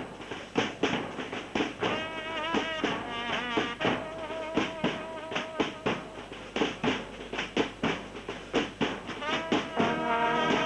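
Music with drums struck on a quick, uneven beat and brass instruments playing wavering melodic lines. Near the end, several brass parts come in together and hold a fuller chord.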